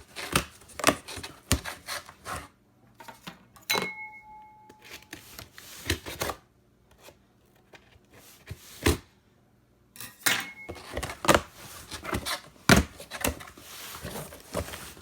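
Cardboard shoebox and packaging being opened and handled by hand: irregular clicks, taps and rustling, with a brief beep-like tone about four seconds in.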